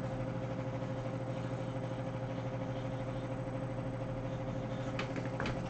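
Steady background hum and hiss with a thin steady tone running through it. A few faint ticks come near the end.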